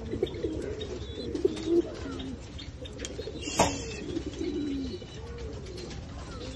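Pigeons cooing in a wavering, rolling drone that runs on without a break. A single sharp knock cuts through about three and a half seconds in.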